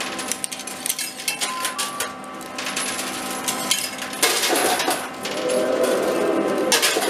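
Coins clinking and clattering in a coin pusher arcade machine as the pusher shelf shoves the pile, over the machine's steady hum and a couple of short electronic beeps. The clatter gets louder and busier about four seconds in.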